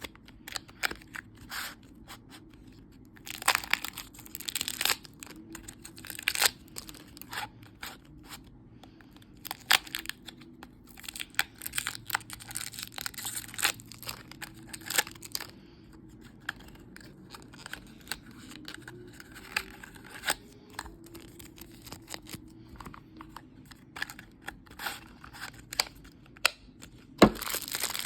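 Toy packaging being torn open and crinkled by hand: a long run of irregular sharp crackles and rips, with one louder snap near the end.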